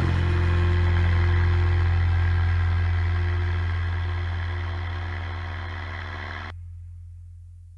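Paramotor's EOS100 two-stroke engine running with a steady low drone. It fades out gradually, and its higher hiss cuts off suddenly about six and a half seconds in.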